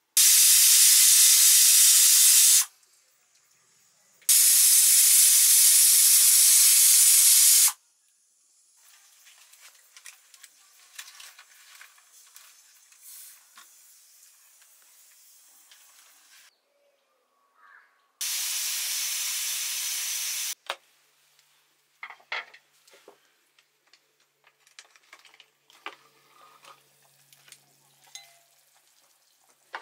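Pressure cooker whistle: three loud bursts of hissing steam, each two to three seconds long and cutting off suddenly, the third quieter and about ten seconds after the second. Faint clinks and knocks of metal utensils come between and after.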